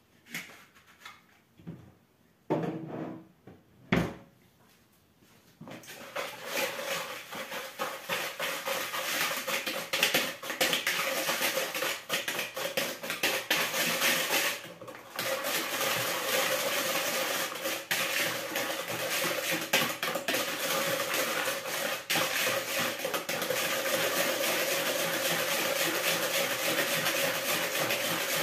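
Metal wire whisk beating pancake batter in a red plastic bowl: a fast, continuous scraping and clicking against the bowl. It starts about six seconds in, after a few separate knocks, and breaks off briefly partway through.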